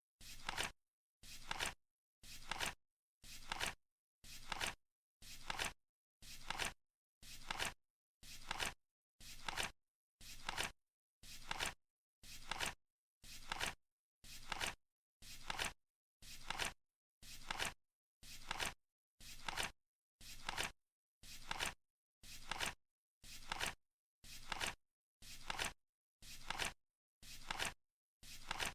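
Flip clock's number cards flipping, one short flap sound each second in an even rhythm, marking the seconds of a countdown timer.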